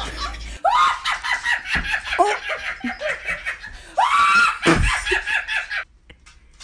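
A woman laughing hard in fast pulses, breaking twice into high, squealing shrieks, about half a second in and again about four seconds in; the laughter cuts off about six seconds in.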